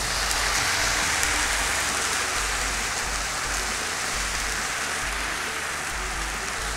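Apple cider vinegar sizzling hard in a hot frying pan on caramelized brown sugar and onion: the vinegar deglazing the caramel. A dense, steady hiss that eases a little as it goes on.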